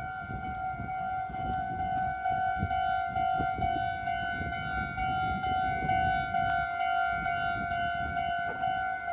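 Japanese level-crossing warning bell ringing on and on, a steady electronic tone repeating without pause, over a low rumble. The crossing is held closed because the train cannot depart.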